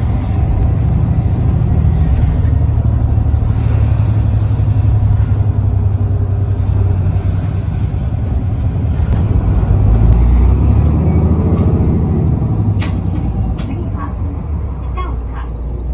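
A bus's engine and road noise heard from inside the cabin while it drives: a steady low rumble that grows louder about ten seconds in and eases off near the end, with a few faint clicks.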